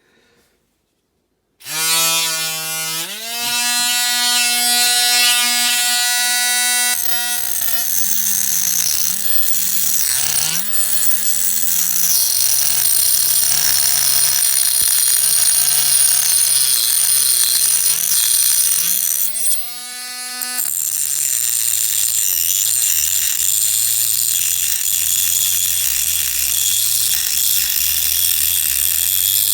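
A small handheld electric power tool starts about one and a half seconds in and runs steadily with a high hiss, cutting into a diecast toy car's metal base. Its motor pitch sags and wavers as it works under load, drops briefly near twenty seconds, then carries on at a lower pitch.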